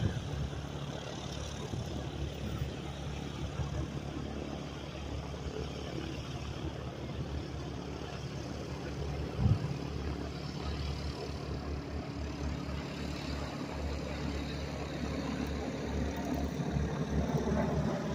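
Radial engines of two Boeing PT-17 Stearman biplanes making a steady distant drone as the pair approach, growing louder near the end as they come overhead. A short thump about halfway through.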